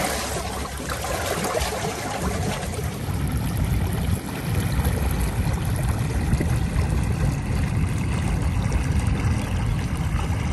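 Stormwater rushing out of a drain outlet and churning into a flooded stream: a steady rush of water.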